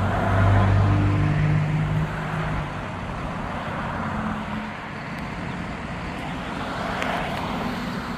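A road vehicle's engine, a low steady hum that is loudest in the first two to three seconds and then fades into an even traffic hiss.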